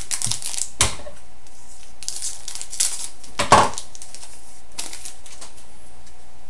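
Trading cards being handled and flipped: light rustles and clicks, with a sharper tap about three and a half seconds in.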